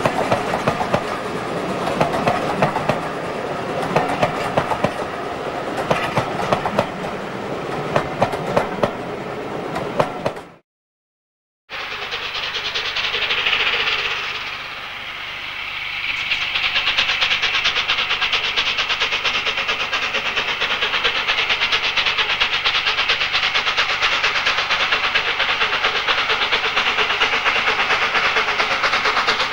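Steam-hauled train heard from aboard, wheels clicking rapidly over the rail joints. After a brief silence, a second steam locomotive is heard working up the line towards the listener: a short whistle-like sound, then a steady rushing exhaust that grows and holds.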